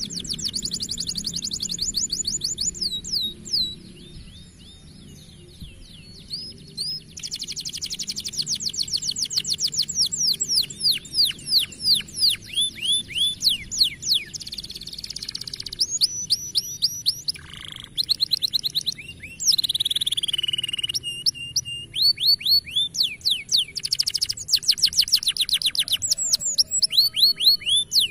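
Domestic canary singing: fast trills of rapidly repeated, falling high notes, in several phrases with short breaks between them.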